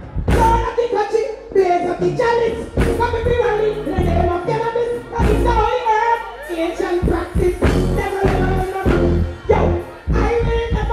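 Live reggae performance through a stage sound system: a woman singing a melody into a microphone over a bass-heavy beat.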